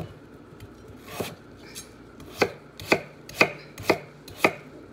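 Kitchen knife chopping peeled russet potatoes against a wooden cutting board: a light knock about a second in, then five sharp chops, about two a second.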